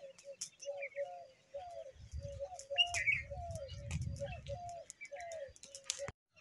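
Birds calling: a run of short, repeated cooing notes, about two a second, with fainter high chirps. A low rumble comes in under them for a few seconds in the middle.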